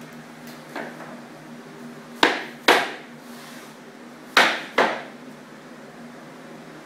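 Rubber mallet knocking engineered hardwood floor planks to seat their lock-and-fold joints: four sharp knocks in two quick pairs, the pairs about two seconds apart, after a fainter tap about a second in.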